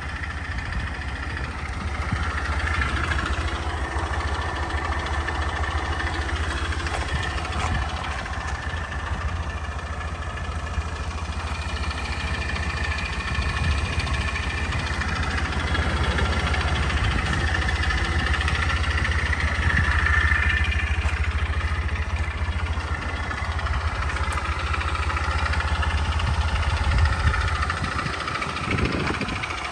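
Honda Motra's 49 cc four-stroke single-cylinder engine idling steadily.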